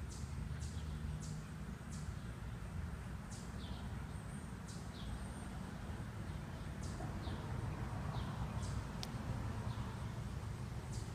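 Short high-pitched chirps, each falling in pitch, repeat irregularly about once a second over a steady low outdoor rumble. A single sharp click comes about nine seconds in.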